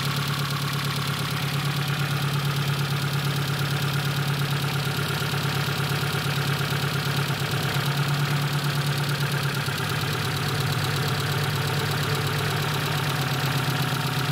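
Daewoo Sens 1.4 four-cylinder petrol engine idling steadily while running almost without oil, on just an oil film. The mechanic suspects the cylinders: a split piston or broken rings.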